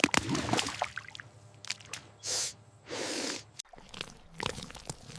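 An animal eating bait food: wet crunching and chewing with scattered clicks, and two short hissing noises about two and three seconds in.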